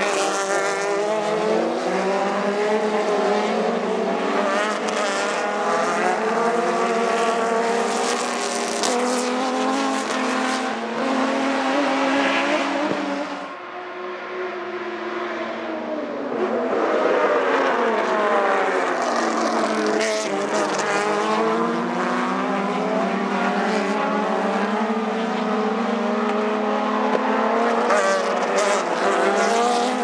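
Several TC Bonaerense race cars' inline six-cylinder engines running hard together. The engine notes climb as the cars accelerate and bend down in pitch as they go by. The sound dips a little over a dozen seconds in, then swells again as more cars pass.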